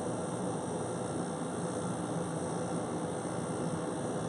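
Hisense 95-pint dehumidifier running with its back cover off: a steady rush of fan air over the low hum of its running compressor.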